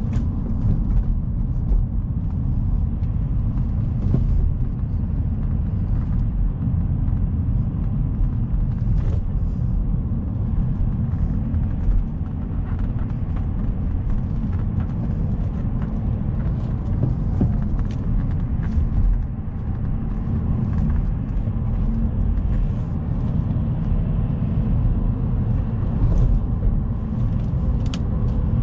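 Alfa Romeo 159 on the move: a steady low rumble of engine and road noise throughout, with a faint engine tone coming through in the last several seconds.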